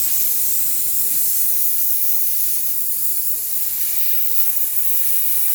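Air hissing steadily out of a pool filter's air relief valve as trapped air pressure is bled off. The owner blames the trapped air on a leak somewhere on the suction side that is drawing in air.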